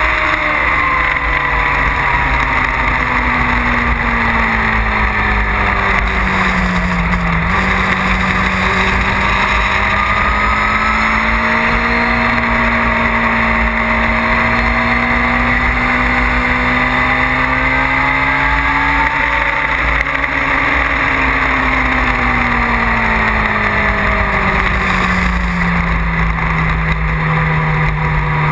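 Motorcycle engine heard from the bike being ridden, running at a steady road speed, its note rising and falling gently with the throttle, with a gear change about seven seconds in and the revs easing down near the end. Heavy wind rush on the microphone.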